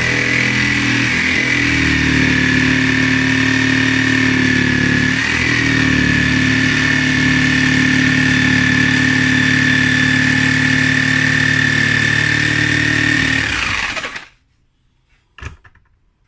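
Electric power tool running steadily with a high whine while cutting into the wood of a cricket bat, the pitch dipping briefly about five seconds in as it bites. It winds down and stops near the end, followed by a couple of short knocks.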